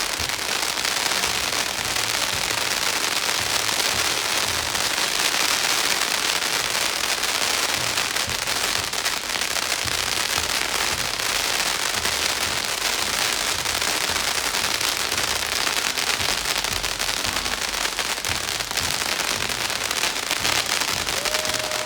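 A long string of firecrackers going off nonstop: a dense, rapid run of small bangs at a steady level with no let-up.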